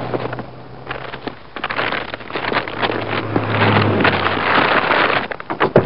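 Vehicle and street noise: a low engine hum that comes and goes, with many scattered knocks and rustles.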